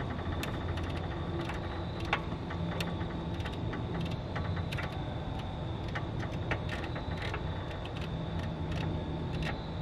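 Irregular metallic clicks and taps of hand tools at work on a Kubota SVL75's track tensioner, which is being loosened to free the thrown track, over a steady low hum. The sharpest clicks come about two seconds in and about six and a half seconds in.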